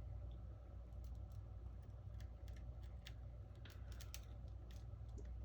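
Scattered light clicks and taps from handling a smartphone's glass back panel and small repair tools, over a faint steady low hum.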